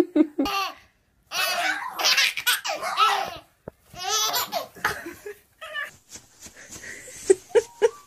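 A baby laughing hard: runs of high belly-laugh bursts with short breaks between them.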